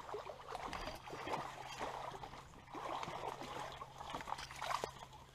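Irregular splashing and sloshing in shallow creek water as a hooked smallmouth bass is pulled in toward shore.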